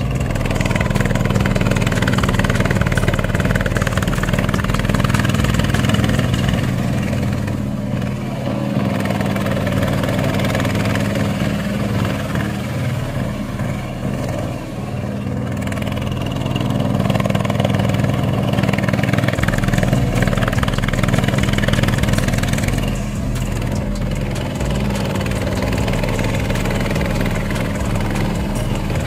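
Boat tractor's 20 hp Chinese diesel engine running steadily, its level dipping briefly a few times.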